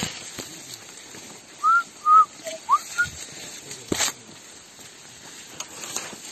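A quick series of five short, clear whistled notes about two seconds in: two arching, one lower, one rising, one brief. Beneath them is the rustle of people moving through dense undergrowth, with a sharp snap about four seconds in.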